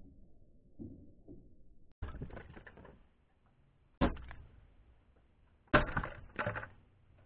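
Air gun shots hitting toy targets and hanging model planes, heard as a series of sharp cracks and knocks: fainter knocks at first, then loud hits about two and four seconds in and two close together near the end, the first of these the loudest.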